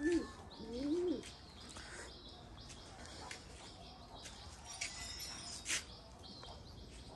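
Domestic pigeons cooing, two rising-and-falling coos in the first second or so. Faint high chirps and a single sharp tap about halfway through follow.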